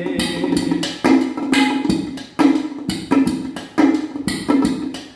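Instrumental break in a Hindi song: drum strikes in a steady rhythm, a little under one and a half a second, each ringing out low and fading before the next.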